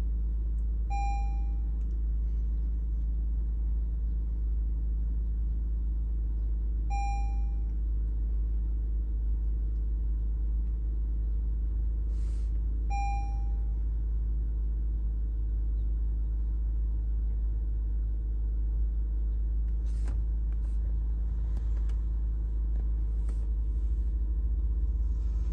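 Lexus RX350's 3.5-litre V6 idling steadily, on a fast cold idle. A short electronic beep sounds three times, about six seconds apart, with a few faint clicks later on.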